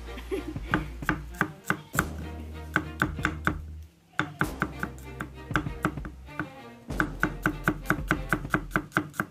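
Kitchen knife chopping on a cutting board in quick, even strokes, about four a second, with a brief pause about four seconds in.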